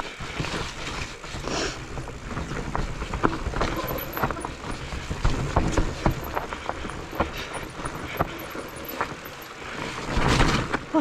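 Mountain bike riding down a rough forest trail: tyre noise over dirt and roots, with frequent sharp rattles and knocks from the bike, and a louder rush of noise near the end.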